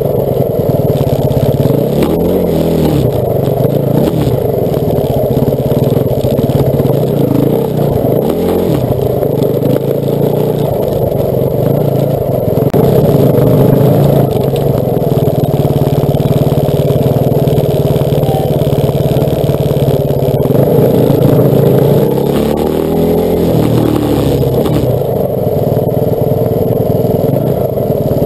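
Off-road trail motorcycle engines running and revving, rising in pitch several times as the throttle is opened, over a constant low rumble.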